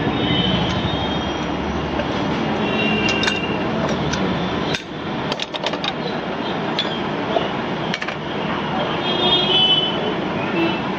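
Glass jars and steel bar utensils clinking and knocking as they are handled, a quick run of clinks about halfway through and single ones later, over a loud, steady background noise.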